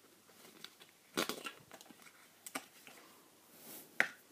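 Hands handling a Mini DisplayPort to VGA adapter and its packaging: three sharp clicks with light rustling between them.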